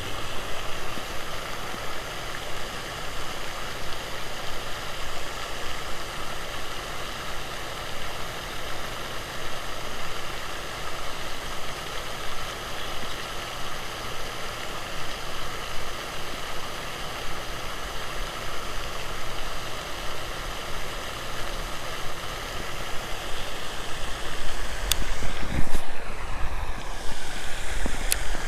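Steady rushing outdoor background noise, with a couple of sharp clicks and some low thumps near the end.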